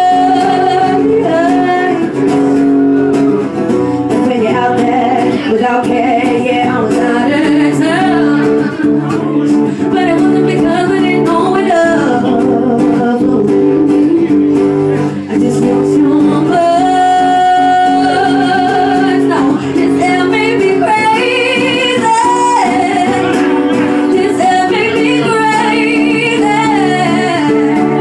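Pop song sung by a solo voice over a guitar accompaniment, the melody wavering on held notes.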